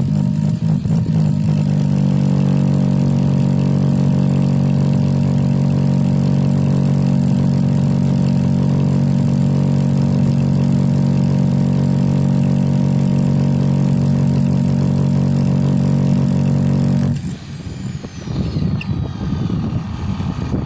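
Bauer rotary hammer drilling into solid rock, a loud steady hammering drone driven by the weight of the tool alone. It stops suddenly about 17 seconds in as the hole is finished, leaving wind noise on the microphone.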